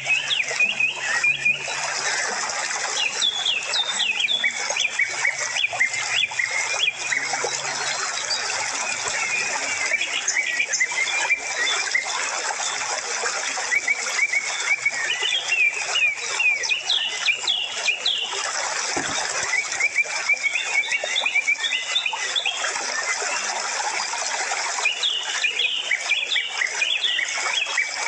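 Many small birds chirping and chattering continuously, a dense overlapping flock of short squeaky calls.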